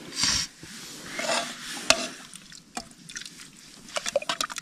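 A serving spoon scooping rice from a cooking pot: a few short scrapes against the pot, with sharp clinks of the spoon on the metal, several in quick succession near the end.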